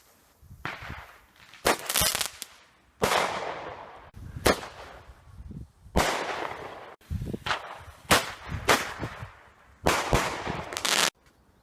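Fireworks going off: a string of sharp bangs, roughly one every second, each trailing off in a fading hiss. It cuts off abruptly near the end.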